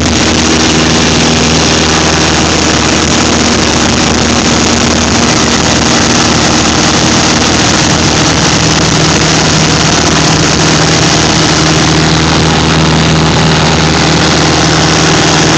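A light high-wing aircraft's engine and propeller running steadily in flight, heard from inside the cockpit over a loud, even rush of wind.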